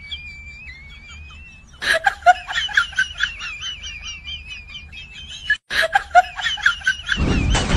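High-pitched giggling laughter in quick, wavering bursts, starting about two seconds in, with a brief cut-out shortly after five seconds.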